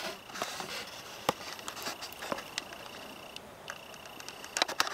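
Footsteps through dry leaf litter, with scattered irregular crackles and twig snaps.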